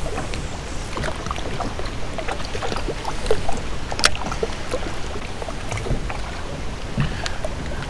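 Small waves lapping and gurgling against a kayak hull, over a steady low rumble, with one sharp click about four seconds in.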